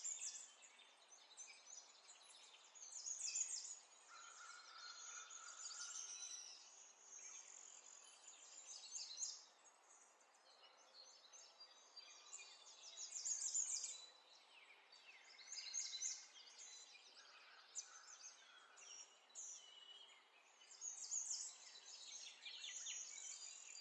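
Near silence: faint room tone with soft, scattered high chirps and ticks every few seconds.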